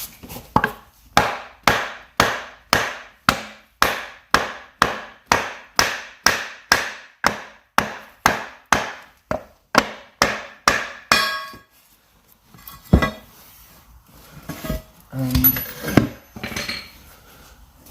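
A hammer striking a three-piece split rim to knock the centre face out of the barrel: about twenty steady blows, roughly two a second, each with a short ring. About eleven seconds in, the blows end in a brief metallic rattle, followed by a few scattered knocks and a thump.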